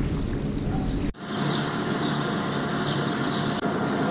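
Wind rumbling on the microphone, then about a second in a cut to a steady distant engine hum.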